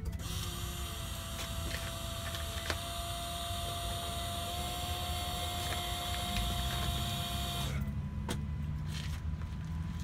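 Factory electric fuel pump of a 2011 Ford F-250's 6.7L Power Stroke diesel priming at key-on: a steady electric whine that starts at once and cuts off suddenly after about eight seconds.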